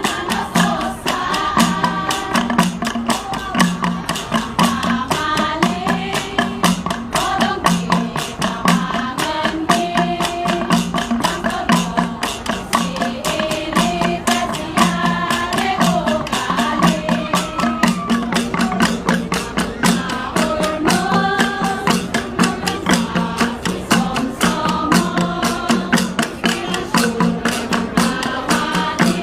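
Kalinga flat gongs (gangsa) beaten in a fast, even rhythm, with a group of voices singing over them.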